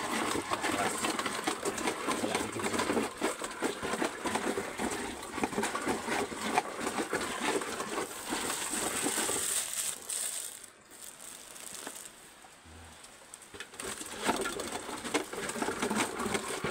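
Ripe coffee cherries clattering and crunching through a manual coffee pulper as they are fed into its hopper: a dense rattle of small hard knocks. It eases off about ten seconds in and starts again a few seconds later.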